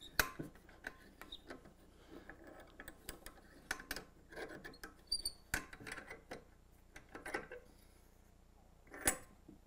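Quiet scattered clicks, taps and scrapes of a bar clamp being shifted and tightened on glued wooden table parts on a workbench, with a few sharper knocks near the start, about midway and near the end.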